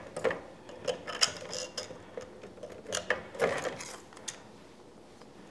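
Hard plastic clicking and tapping as small 3D-printed parts are pressed into a printed model and the model is handled. The clicks are irregular and stop about four seconds in.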